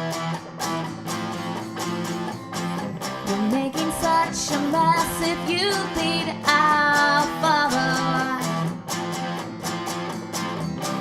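Acoustic guitar accompaniment with a picked lead guitar melody over it, in an instrumental passage of a folk-pop song.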